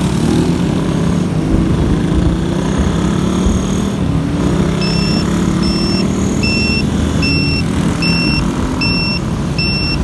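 Motorcycle engine running under way, its pitch rising and falling as the rider works the throttle. About halfway through, a short electronic beep starts and repeats evenly, a little faster than once a second.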